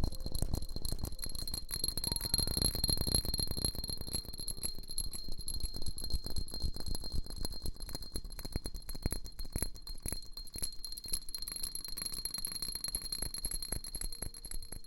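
Close-miked ASMR rustling: a dense, irregular run of small crackles and scratches, with a faint steady high whine underneath.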